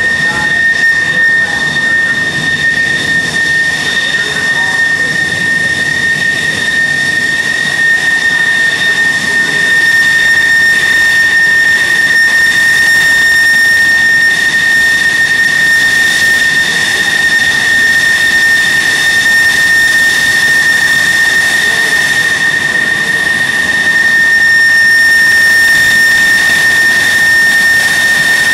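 Grumman F-14 Tomcat fighters taxiing at low power: their jet engines give a steady high-pitched whine over a broad rush of noise. The sound grows louder about a third of the way in and again near the end as the lead jet draws close.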